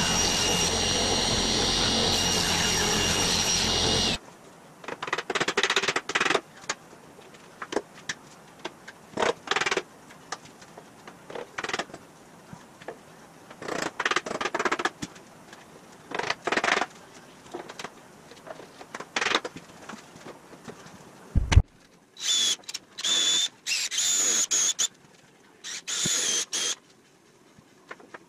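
Table saw ripping a wooden strip, running steadily for about four seconds, then cutting off. After that come short separate bursts of work as a mallet taps pine stringers into an OSB body buck. Near the end a cordless drill drives screws in short whirring bursts.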